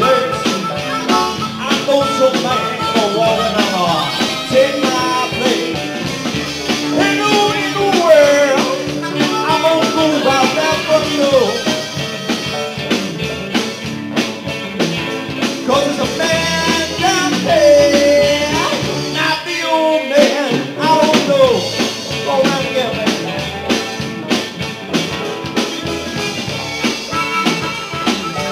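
A live rock band playing with electric guitars and bass, a lead line bending up and down in pitch over the band.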